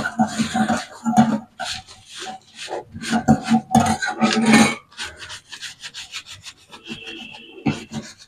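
Greasy metal mesh filter from a kitchen chimney, sprayed with kerosene, being scrubbed by hand at the sink: quick back-and-forth rubbing strokes that stop and start, growing softer about five seconds in.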